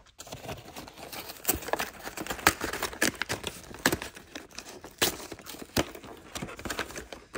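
Cardboard box packaging being torn open by hand: irregular ripping, crinkling and crackling of the paperboard.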